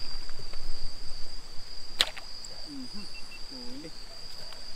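A speargun fires once with a single sharp snap about two seconds in, a shot at a fish in shallow creek water. Crickets chirr steadily throughout.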